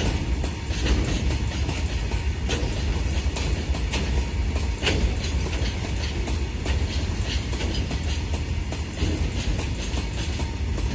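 Open-top freight wagons rolling past on the track: a steady rumble of steel wheels on the rails, with repeated clickety-clack as the wheel sets cross rail joints.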